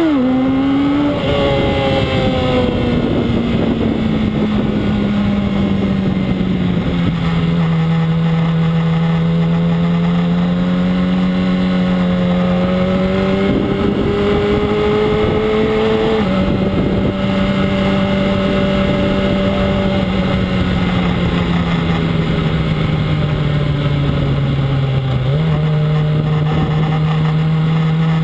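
Yamaha R1's inline-four engine heard onboard, running steadily under the rush of wind. Its pitch drifts slowly and steps abruptly a few times as gears change.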